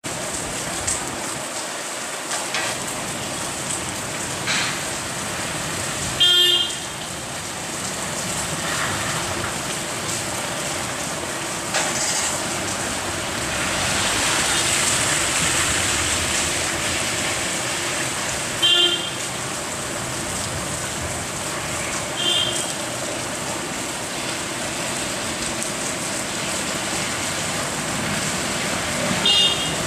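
Steady rain and street traffic, with a vehicle horn beeping briefly four times, spread out.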